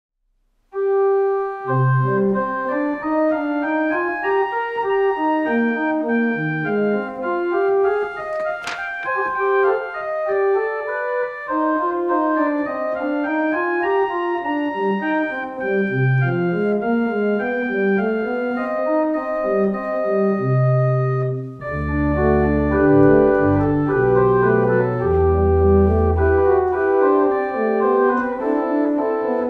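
Organ playing a slow piece of held chords, starting about a second in. About three-quarters of the way through, deep bass notes come in and the sound grows fuller and a little louder.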